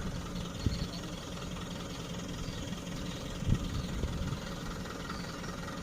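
Hitachi excavator's diesel engine running steadily, with a couple of dull low thumps, one just under a second in and another about halfway through.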